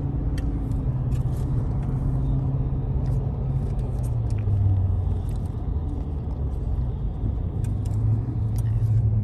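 Road and engine noise heard inside a moving car's cabin: a steady low drone over rumble, dipping slightly in pitch about four seconds in and rising again near the end.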